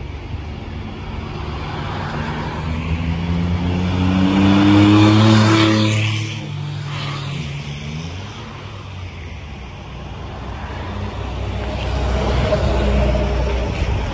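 A road vehicle passing close by: its engine note builds to a peak about five seconds in, then drops in pitch and falls away as it goes past. A low traffic rumble follows and swells again near the end.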